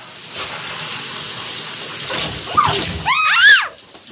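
Handheld shower head spraying water onto a wet dog, a steady hiss. Near the end a short, loud, high-pitched cry rises and falls in pitch.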